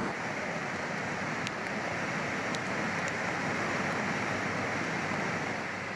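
Steady, even rush of fast-flowing floodwater from a river in spate.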